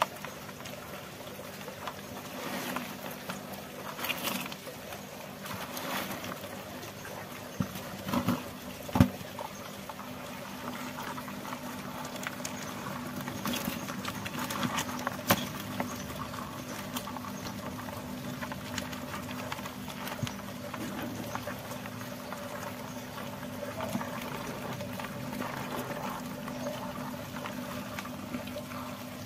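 Live crayfish crawling over one another in a tub: a continuous patter of small clicks and scrapes from their shells and legs, with a few louder knocks about eight to nine seconds in. A steady low hum runs underneath.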